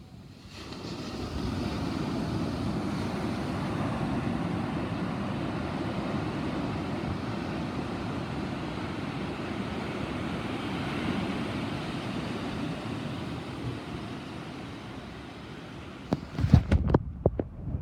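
Thunder rumbling: it swells up within about a second and rolls on for some fifteen seconds, slowly fading. Near the end come a few loud, sharp knocks.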